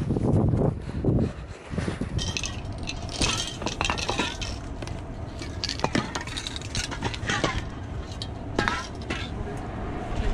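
A low rumble for about the first two seconds. Then metal aerosol spray-paint cans clink and knock against each other, irregularly, as they are handled in a bag.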